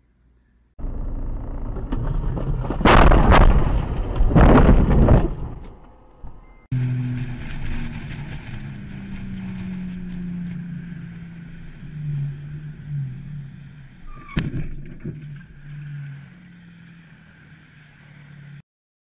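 Loud rumbling noise with two heavy blasts about a second and a half apart. After a cut, the steady engine and road noise of a car recorded by its dashcam, with one sharp knock near the middle.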